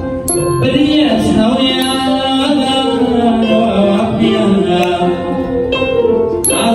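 A man sings a Burmese classical song (tay htat) over a saung gauk (Burmese arched harp). Small si hand cymbals strike and ring a few times to keep the beat.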